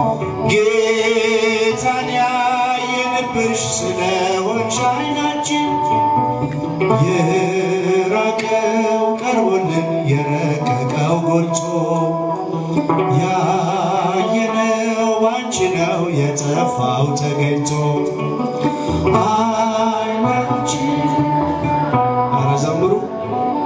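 A man sings an Ethiopian Orthodox hymn (mezmur) with musical accompaniment.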